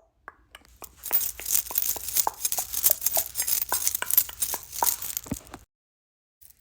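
Rustling and crinkling full of small clicks, starting about a second in and cutting off suddenly near the end.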